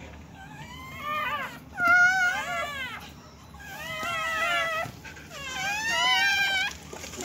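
Newborn Siberian husky puppies crying: about four high-pitched squealing cries, each about a second long, rising and falling in pitch.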